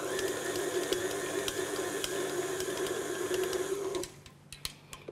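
Electric stand mixer running steadily with a dough hook kneading bread dough, a steady motor hum with a higher whine, switched off about four seconds in. A few sharp clicks follow as the mixer head is tilted up.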